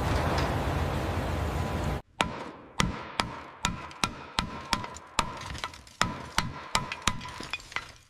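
A loud, steady rushing noise cuts off abruptly about two seconds in. It is followed by a regular run of sharp hammer taps on metal, about two to three a second, each leaving a ringing tone.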